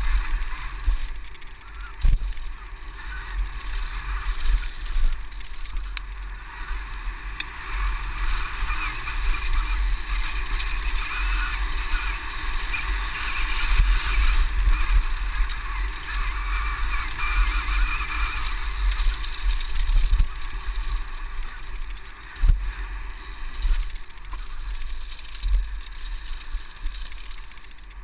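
Downhill mountain bike descending a dirt trail: heavy wind rumble on the bike-mounted camera's microphone with tyre noise and rattle, the loudness rising and falling with the ground, and a few sharper knocks from bumps.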